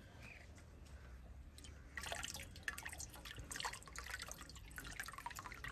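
Water dripping and splashing into a metal bowl as washed pieces of raw liver are pressed and drained on a tilted plate. The dripping starts about two seconds in and turns into a dense patter.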